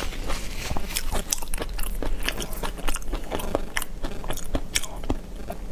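A person chewing food right at a clip-on microphone: wet mouth clicks, several a second and irregular.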